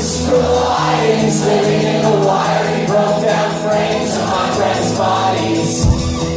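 Live indie rock band playing acoustic guitar, keyboard and drums, with many voices singing together as a concert crowd sings along. The deep bass drops away about a second in, and there is a low thump near the end.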